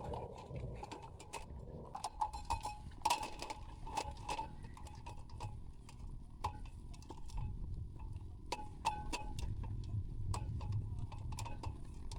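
Irregular light clicks and clinks, some with a short ring, over a steady low rumble.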